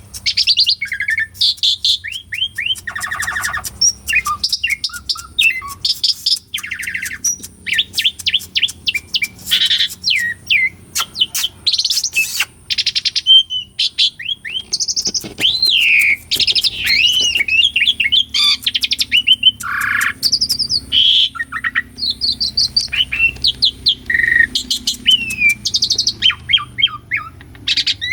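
Asian pied starling (jalak suren) singing nonstop: a fast, varied run of whistles, chattering notes and a few harsh, rasping notes with hardly a pause.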